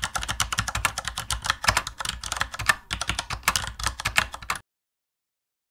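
Rapid, uneven clicking of computer-keyboard typing, which stops abruptly about four and a half seconds in.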